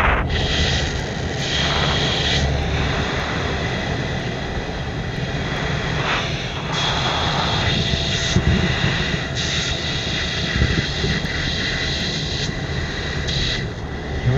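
Steady roar of jet engine and rushing air heard inside the cockpit of a two-seat F-18 in flight, with a thin steady whine above it.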